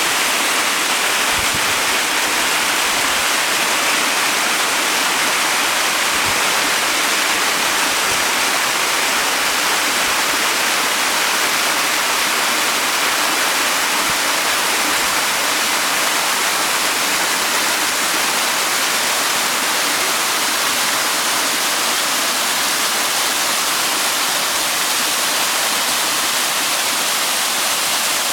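A waterfall rushing steadily, its falling water making an even, unbroken hiss of noise.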